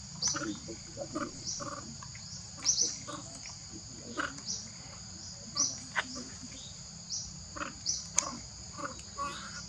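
A steady, high insect drone from the forest, with short, sharp rising chirps repeating about once a second.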